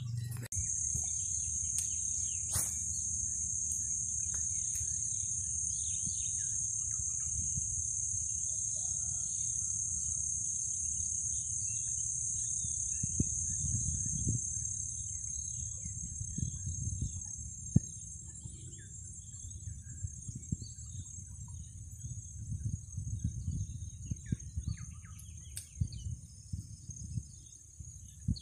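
A steady, high-pitched insect chorus, fading somewhat in the last few seconds, with scattered bird chirps over it and an uneven low rumble of wind on the microphone.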